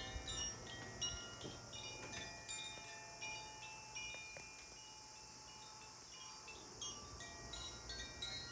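Healing chimes of the wind-chime type, played by hand. Many high, bell-like notes ring and overlap, thin out about halfway through, and pick up again near the end.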